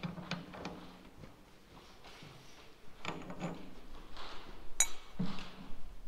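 Light metallic clinks and knocks from handling a Cat D11 engine's steel oil-centrifuge rotor clamped in a bench vise, with one sharper, ringing metal clink about five seconds in.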